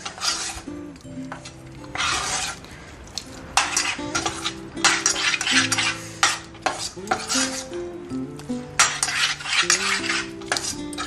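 A flat metal spoon scraping and stirring a thick, lightly sizzling gram flour, ghee and palm jaggery mixture around a stainless steel saucepan, in irregular scrapes about once a second. The Mysore pak mixture is nearly cooked and no longer sticks to the pan.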